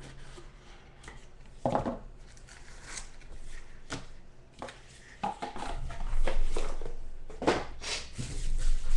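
Trading card boxes and packs being handled and opened by hand: irregular rustles, clicks and light knocks of packaging, louder toward the end, over a faint steady low hum.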